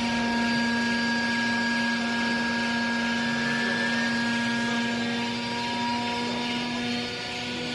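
Vertical hydraulic baler's power unit running under load as the press works: a steady whine with a hiss that stops about seven seconds in.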